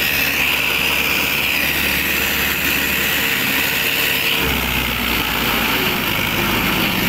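Small electric motor and gearbox of a homemade toy tractor running steadily under load as it pulls a leveller, a high whine over a low hum. The hum shifts about four and a half seconds in.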